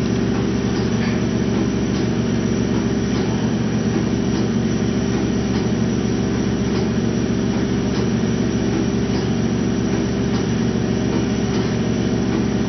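LS-650 lipo laser cavitation vacuum RF slimming machine running with a steady low hum made of several held tones, with a few faint ticks over it.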